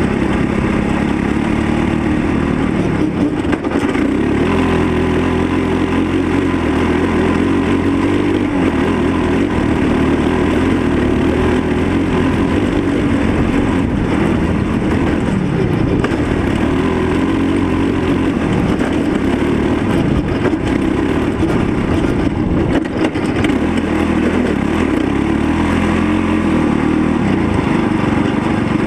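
Kawasaki KLR650 single-cylinder four-stroke engine of an off-road buggy running hard under way on a dirt track, its revs rising and falling with the throttle.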